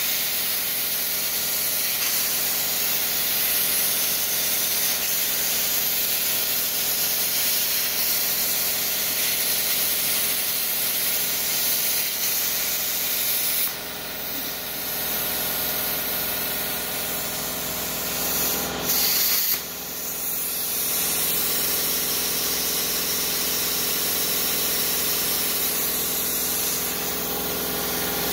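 CNC plasma cutter's arc hissing steadily as the torch cuts through a steel handsaw blade. The hiss drops away briefly about halfway through and again a few seconds later, then resumes as the arc restarts for the next cut.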